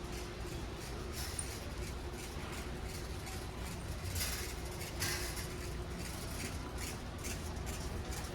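Warehouse store ambience: a steady low hum with scattered light clicks and clinks, the loudest about halfway through.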